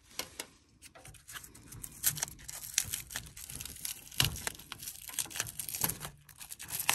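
Hands peeling and tearing the insulation wrap off a TXV sensing bulb on an air-conditioner coil's suction line: crinkling and tearing with scattered sharp clicks, the loudest about four seconds in.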